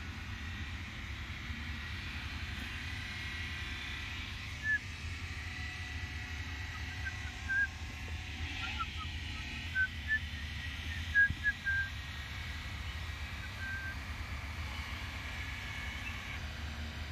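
Distant machinery drone: a steady low rumble with a faint high whine. A handful of short, high chirps come scattered through the middle.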